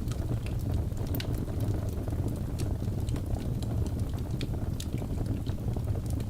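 Fire burning in a fireplace: a steady low rumble with small crackles and pops scattered irregularly throughout.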